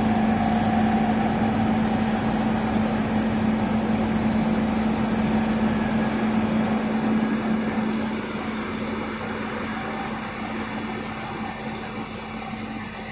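Bulldozer engine running steadily with a constant drone, growing quieter about eight seconds in.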